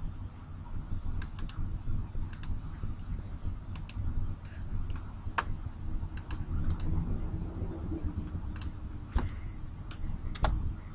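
Scattered clicks of a computer keyboard and mouse, a dozen or so sharp keystrokes and clicks at irregular intervals over a low steady hum.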